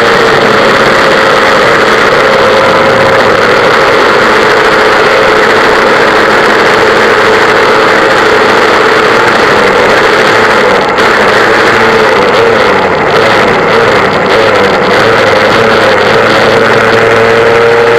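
Vintage West Bend two-stroke kart engine running hard under way. It is very loud and holds a nearly steady high pitch that wavers a little in the second half.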